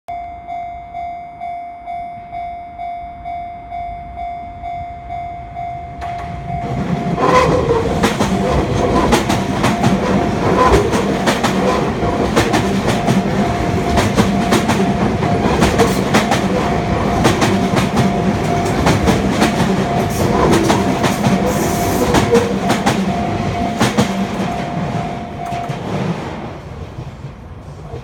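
Japanese level-crossing warning bell ringing, about two strikes a second. About seven seconds in, a Sotetsu New 7000 series electric train passes at speed, its wheels clattering over rail joints. Near the end the bell stops and the train noise dies away.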